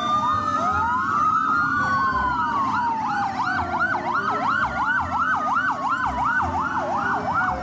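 Fire engine sirens sounding together: a slow wail that falls in pitch, overlapped by a fast yelp rising and falling about two to three times a second, over a low rumble.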